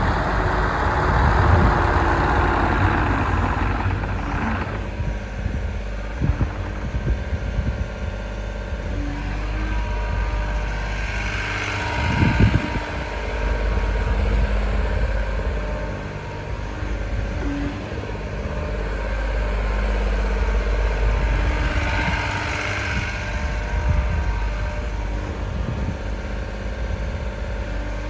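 A JCB 60C-2 midi excavator's diesel engine running steadily. Its sound swells briefly twice, about halfway through and again near the end, and there are a few knocks.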